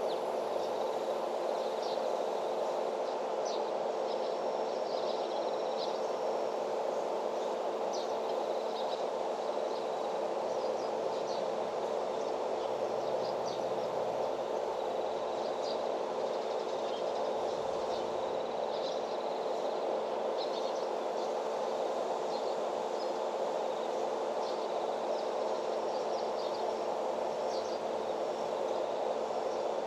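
Rural outdoor ambience: a steady hum with a constant tone runs throughout, with short, high chirps scattered over it.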